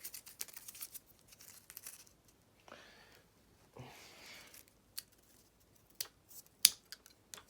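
Hands handling small parts: rustling and crinkling for the first couple of seconds, then softer shuffling, then several sharp separate clicks, the loudest about six and a half seconds in.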